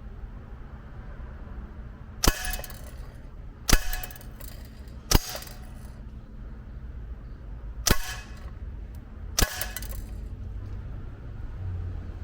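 BB gun fired five single shots, each a sharp crack followed by a short metallic ring as the BB strikes the metal trap; the shots come at uneven gaps of one to three seconds.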